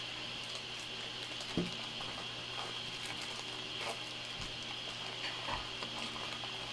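A plastic zip-top bag of sliced bitter gourd crinkling and crackling in short irregular bursts as hands press the air out and squeeze the zipper seal shut, with the loudest crackle about a second and a half in. A steady hum and hiss runs underneath.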